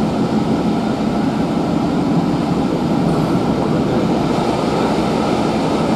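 Steady rumble and rush of a moving steam-hauled passenger coach, wheels running on the rails, heard from inside the carriage.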